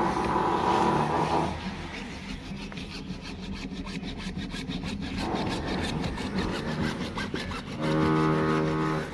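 Hacksaw cutting through a white plastic (PVC) water pipe in quick, even back-and-forth strokes. Near the end a loud, steady, low droning tone sounds for about a second.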